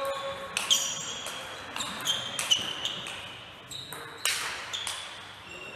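Table tennis ball being struck by rubber paddles and bouncing on the table in a fast rally: a quick series of sharp, ringing pocks, roughly two a second.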